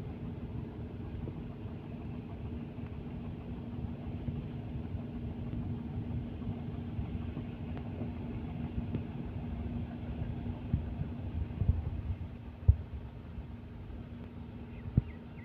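A river vessel's diesel engine running with a steady low rumble and a constant hum. Two short knocks stand out near the end.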